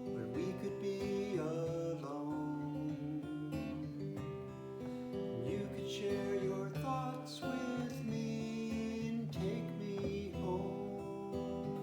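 Acoustic guitar music, plucked with some strummed chords.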